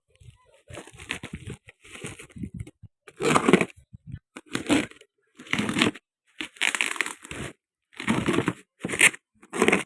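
Product packaging being handled and opened: repeated bursts of crinkling, rustling and tearing, each lasting about a second with short pauses between.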